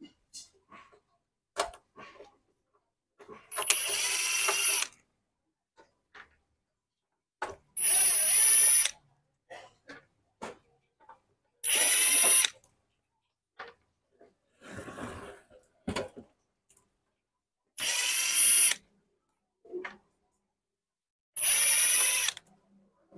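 Ryobi cordless driver running in five short bursts of about a second each, backing screws out of a battery charger's sheet-metal case, with small clicks and handling knocks between the runs.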